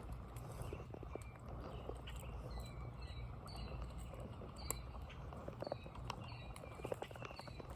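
Creekside outdoor sound of birds chirping in short, slightly falling high notes, repeated many times throughout, over a steady low rumble with a few faint clicks.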